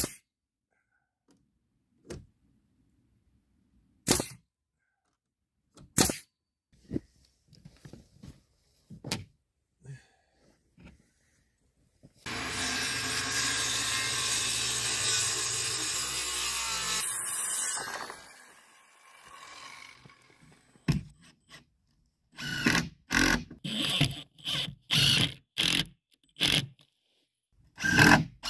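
Pneumatic framing nailer firing single nails into a stud wall, one sharp shot about every two seconds. Then a circular saw cuts an OSB sheet for about five seconds and spins down. Near the end comes a quick series of short power-tool bursts as the OSB is fastened down.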